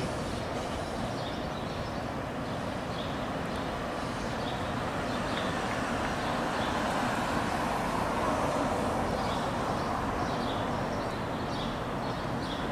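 A TTC T-1 subway train running away along the track, a steady rumble of steel wheels on rail.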